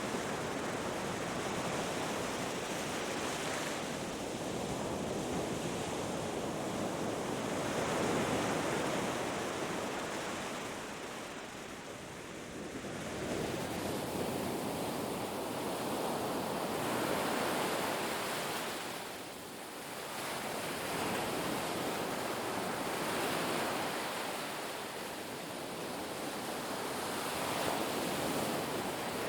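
Ocean surf breaking and washing on a beach: a continuous rush that swells and eases every several seconds, dropping briefly twice as waves draw back.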